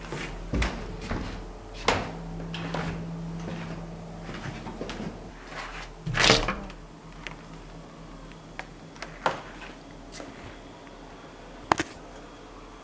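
Footsteps and knocks as someone moves through a stairwell and opens a door: scattered separate knocks and clicks, the loudest a longer thump about six seconds in as the door is pushed open, and a sharp double click near the end.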